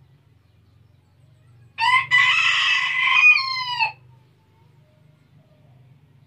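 A rooster crowing once, a single call of about two seconds that starts about two seconds in, its closing notes falling in pitch.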